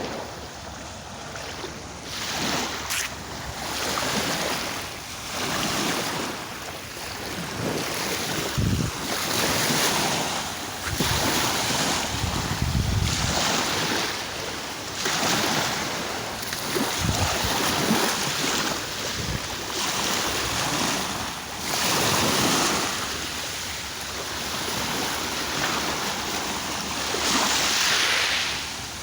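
Sea waves washing in and drawing back, swelling and easing every few seconds, with wind buffeting the microphone in short low rumbles.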